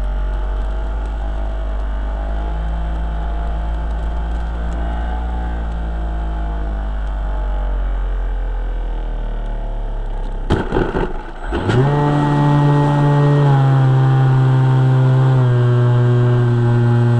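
Motor and propeller of a HobbyKing MX-2 foam RC airplane, heard through a camera inside the airframe, running at low throttle with a steady low hum. About ten seconds in there is a second of rattling knocks, then the motor is throttled up to a much higher steady pitch that steps down slightly twice.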